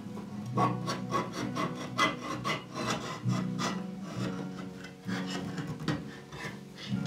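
Hand-held can opener cutting around the lid of a tin can in repeated short strokes, about three a second, over soft acoustic guitar music.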